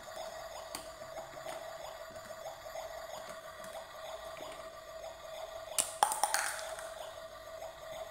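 A steady high electronic tone, likely from the toy kitchen's sound effect, runs throughout. About six seconds in there is a brief clatter of a few sharp knocks, as of plastic toy cookware being handled.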